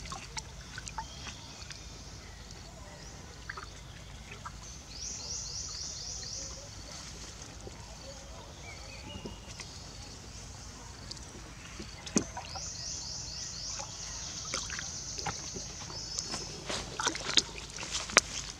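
Water sloshing and splashing in a plastic tub as baby macaques wade and clamber in it, with sharper splashes and knocks on the tub that come thick and fast near the end. A high, rasping buzz of quick repeated strokes comes and goes twice in the background.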